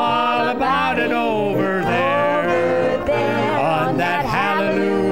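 A country-gospel song: a man singing, accompanied by a piano accordion and an electronic keyboard.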